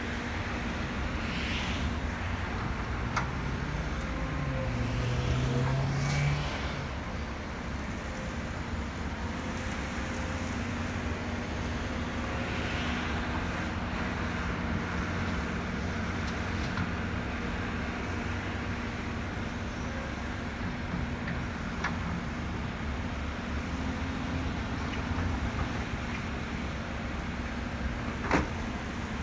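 Volvo EC330BLC excavator's diesel engine running steadily as it works its hydraulics to load a dump truck, with the engine note rising under load a few seconds in. Dirt rushes into the truck body now and then, and there is one sharp knock near the end as the bucket digs into the pile.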